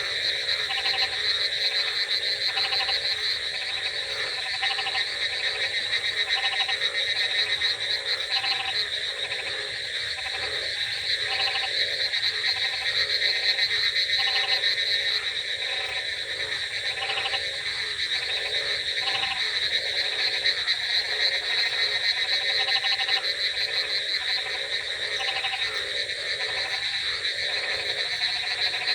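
A chorus of frogs croaking: short calls repeat about once a second over a steady high trill and a dense background of overlapping calls.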